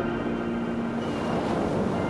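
Steady ocean surf and wind noise with a few faint held tones.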